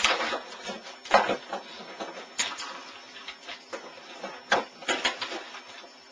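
Things on a desk being shoved aside and clattering, a handful of sharp knocks with rustling between them, as a computer keyboard is pushed into place.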